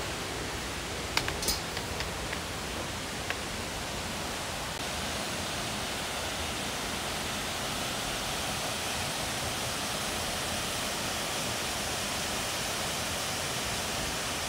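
Steady rush of a waterfall. In the first few seconds, a handful of sharp clanks from footsteps on the grated metal steps of a spiral staircase.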